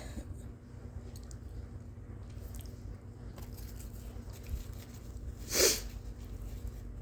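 A woman's single sharp sneeze, short and loud, about five and a half seconds in, over a low steady hum.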